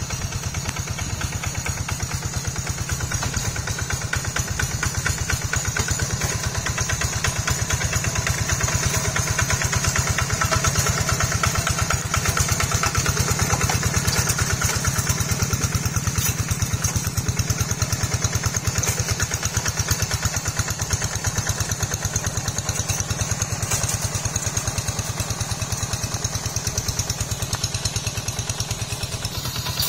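Kubota two-wheel hand tractor's single-cylinder diesel engine chugging steadily under load while it plows a flooded rice paddy, a fast even beat.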